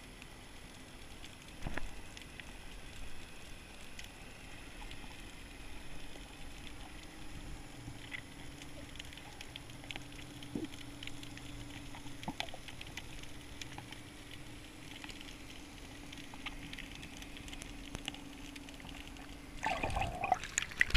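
Underwater ambience picked up by a camera: faint, irregular crackling and clicks over a steady low hum. Near the end a louder burst of sloshing water noise.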